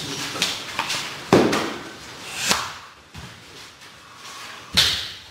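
Three sharp slaps from sumo wrestlers at practice: one about a second in, the loudest, another a little over a second later, and a last one near the end.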